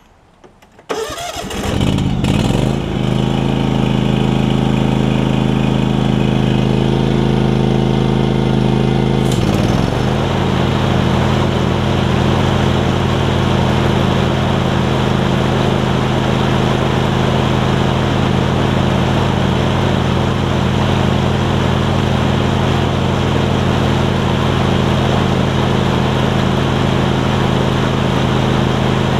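John Deere LX277 riding mower's engine cranked and starting about a second in, then running steadily at speed. About nine seconds in the engine briefly dips as the newly fitted mower deck's blades are engaged, and it runs on smoothly with the deck whirring.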